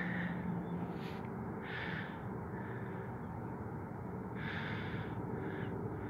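A man breathing close to the microphone: a few audible breaths, one about two seconds in and two more near the end, over low background noise.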